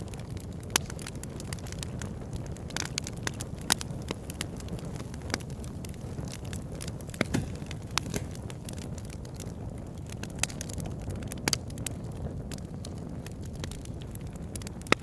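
Wood campfire burning: logs crackling with irregular sharp pops over a steady low rush of flame.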